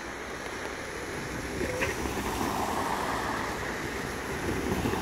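A car driving past a railroad crossing, its tyre and road noise swelling from about a second and a half in and holding, with wind rumbling on the microphone.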